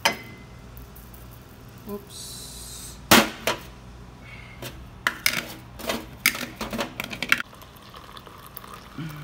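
A glass instant-coffee jar and a ceramic mug being handled on a tray: a brief hiss of granules pouring, a loud knock about three seconds in as the jar is set down, then a run of clicks and clinks for a couple of seconds.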